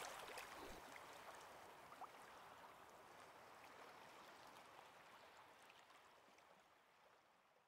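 Faint ocean surf ambience, a soft wash of water with small fizzing ticks, fading out to silence over about six seconds.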